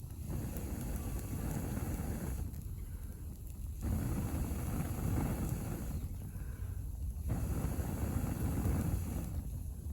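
Low roar of a wood stove fire that swells and drops three times at an even pace, about every three and a half seconds.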